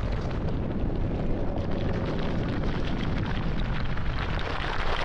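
Explosion sound effect: a deep, continuous rumble with dense crackling, even in level.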